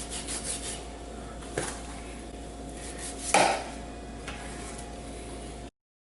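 Knife trimming fat from a raw beef brisket on a cutting board: soft scraping strokes at first, a tap about one and a half seconds in and a louder knock a little over three seconds in, over a steady low hum. The sound cuts off suddenly near the end.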